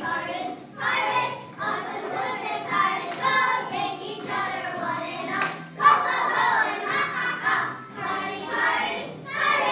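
A group of children singing a song together on stage.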